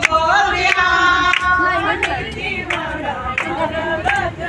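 Group of devotees singing a Hindu bhajan-kirtan together, with hand-clapping keeping time.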